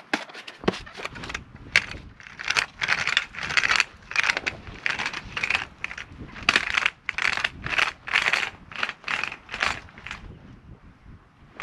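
Magnetic sweeper pushed back and forth over gravel and grass, picking up steel drill chips: a quick run of crunching, clinking strokes, about two or three a second, dying away near the end.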